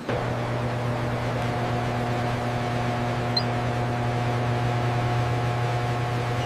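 A steady mechanical hum with several held pitches, the lowest and strongest deep, over a rushing noise. It starts abruptly and runs unchanged.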